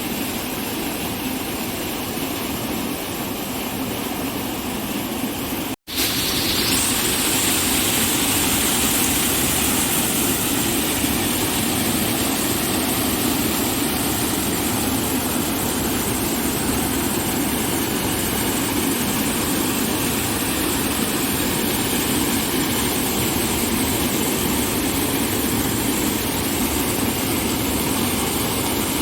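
Steady rushing water, an even hiss without rhythm. It breaks off for an instant about six seconds in and resumes a little louder.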